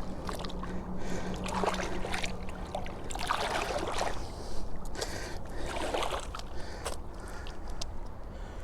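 Water splashing and sloshing at the shoreline in several swells, about two, three and a half, and six seconds in. A low steady hum fades out about three seconds in.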